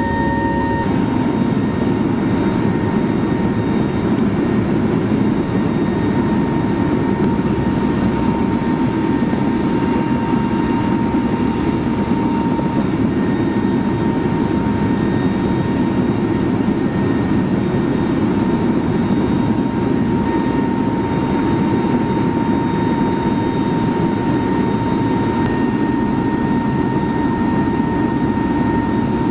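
Steady drone of a military transport plane's engines heard inside its cargo cabin, loud and unbroken, with a thin steady whine riding over it.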